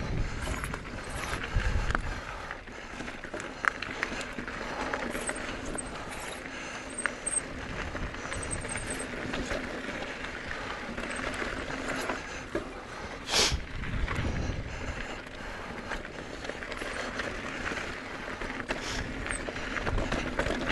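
Continuous rattling and crunching of movement along a dirt trail, with scattered clicks and low wind rumbles on the microphone; a sharp knock about two-thirds of the way in.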